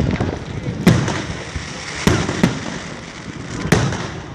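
Fireworks display bursting: four sharp bangs about a second apart, two of them close together, over a continuous rumble of shells going off.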